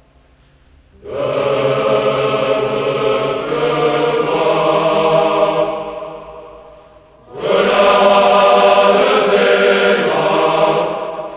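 Choir singing two long, slow phrases of held chords, each swelling in and fading away, with a short pause between them.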